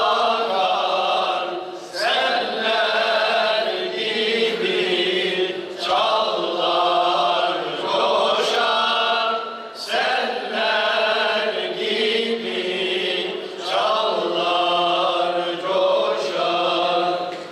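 A group of men singing an ilahi, a Turkish Islamic hymn, together and unaccompanied, in long held phrases that break for a breath about every four seconds.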